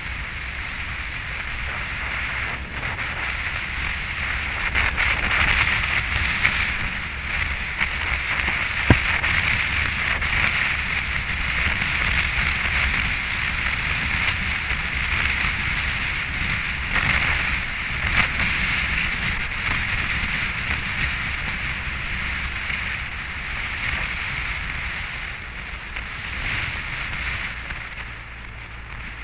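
Wind rushing over the microphone and road noise from a Yamaha FJR1300 motorcycle on the move on a wet road, with the inline-four engine as a steady low drone underneath. A single sharp click about nine seconds in.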